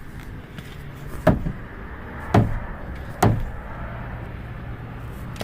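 Three hammer blows struck on the fuel tank, about a second apart, to jolt a stuck, failing in-tank fuel pump into starting. A steady low hum comes in just after the last blow.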